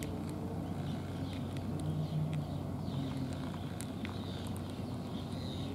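A motor running steadily as a low hum with a few held tones in it. Over it come scattered small, crisp clicks of a cat chewing dry cat food.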